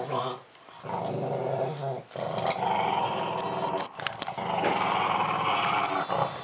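Pug growling while eating a pumpkin and guarding it: a run of long, low growls, each over a second, broken by short pauses, with a few sharp clicks about four seconds in.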